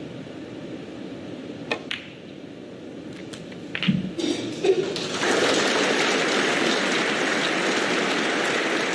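Snooker balls clicking together on the table, then from about five seconds in a crowd breaking into steady applause.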